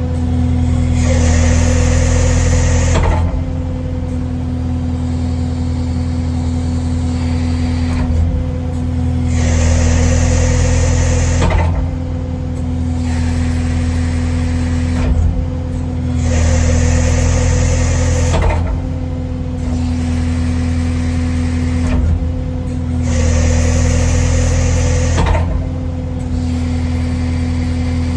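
Kubota skid steer's diesel engine running steadily while the hydraulic grapple is opened fast four times. Each opening brings a loud hydraulic hiss and groan lasting two to three seconds as the engine takes the load.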